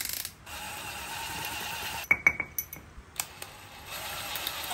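Small metal parts clinking against each other. Two sharp ringing taps come about two seconds in and a few more just after three seconds, over a low steady hiss.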